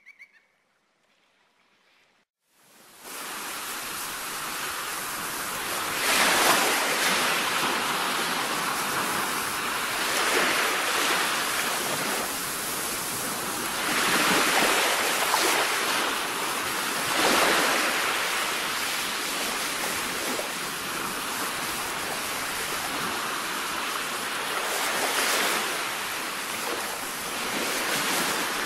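Ocean surf: waves washing in and breaking, the sound swelling and falling back every few seconds. It sets in about two and a half seconds in, after a short silence.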